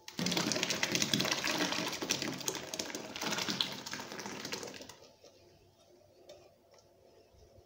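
Thick blended fruit pulp being poured from a metal bowl into a pot of liquid syrup, splashing and gurgling with a rapid crackle, ending about five seconds in.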